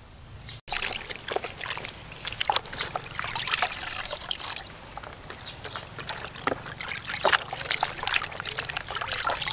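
Hands swishing and squeezing enoki mushrooms in a plastic basin of water, making irregular small splashes and dribbles. The sound starts about half a second in.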